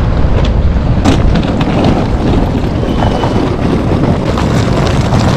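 Loud, continuous rumbling noise, heaviest in the low end and fluctuating, with no voices over it.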